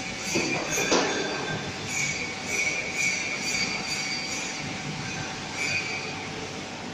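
An automatic packaging machine running, with a steady mechanical clatter, a sharp knock about a second in, and short high-pitched squeals that come and go.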